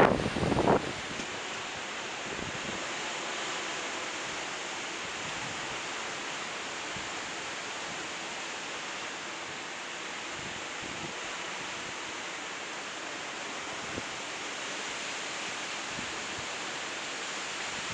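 Steady hiss of hurricane-force storm wind, with gusts buffeting the microphone in the first second.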